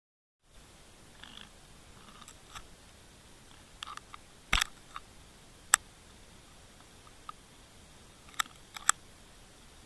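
Underwater recording: a steady hiss with scattered sharp clicks and snaps, the loudest about four and a half seconds in.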